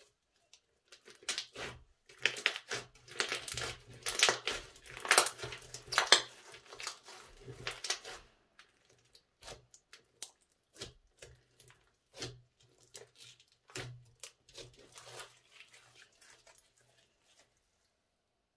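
Glitter slime being folded and pressed with the fingers, crackling and popping. The crackles come thick and fast for the first several seconds, then thin out to separate pops.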